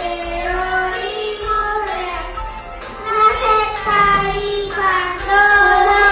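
A group of young children singing a Christmas song together over a musical accompaniment, the singing growing louder about halfway through.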